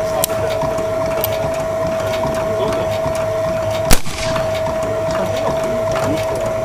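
A single rifle shot about four seconds in, by far the loudest sound, over a steady high-pitched whine and scattered light wooden clicks and creaks.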